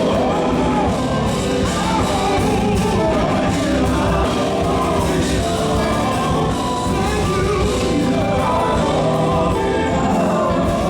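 Gospel vocal group singing live with instrumental backing, voices gliding and overlapping over a steady accompaniment.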